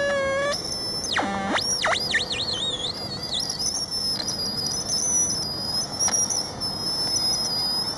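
Homemade electronic sound device built from recycled circuits, making synthetic bird-like calls. A buzzy held tone stops about half a second in, then deep swooping pitch glides give way to a wavering high whistle.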